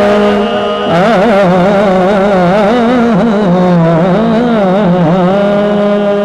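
A man singing a hamd-naat into a microphone: long held notes with wavering melismatic ornaments and no distinct words, pausing briefly near the first second before starting a new phrase.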